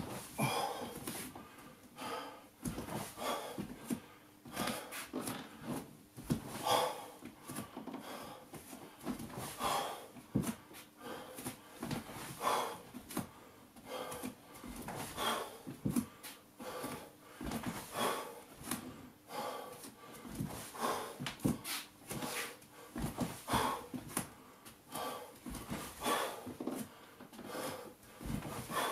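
A man breathing hard through exercise reps, with a loud noisy exhale about every two and a half to three seconds and small knocks and rustles of movement in between.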